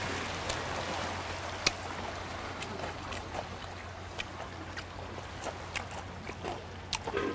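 Small sea waves washing over shoreline rocks, a steady surf hiss that eases a little after the first couple of seconds. Light clicks and taps of chopsticks on plates come through every second or so.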